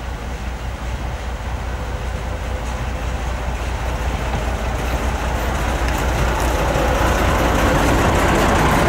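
Lxd2 narrow-gauge diesel locomotive pulling its train away, its engine running steadily and growing louder as it approaches and passes. In the second half, wheels click over the track as the wagons roll by.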